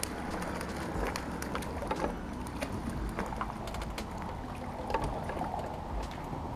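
Wind rumbling on the microphone in a small fishing boat, with scattered light clicks and knocks.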